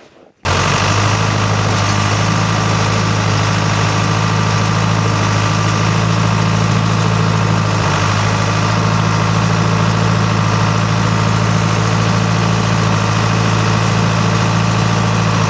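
Log skidder's engine running at a steady speed, a deep even drone that cuts in abruptly just after the start.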